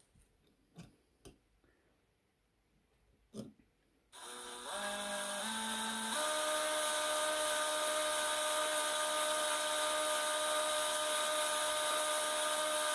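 DeWalt 18V cordless drill boring a hole through the end of a metal spoon. A few faint clicks, then about four seconds in the motor starts, its whine stepping up in pitch over the next two seconds before running steadily.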